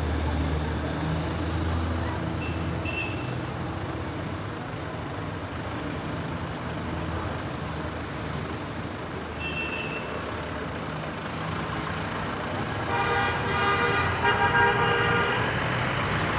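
Diesel locomotive engine running, with its horn sounding in two blasts near the end.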